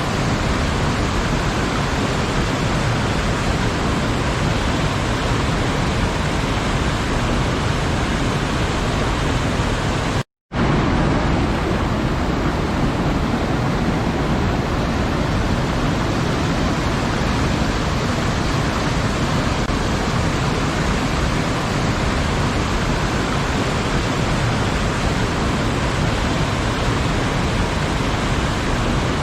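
Waterfall: a steady, dense rush of falling water with no change in level. It cuts out to silence for a fraction of a second about ten seconds in, then resumes unchanged.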